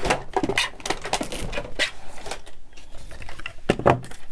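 Paper and craft pieces being handled on a work table: crinkling and a run of small clicks and taps, with one louder knock near the end.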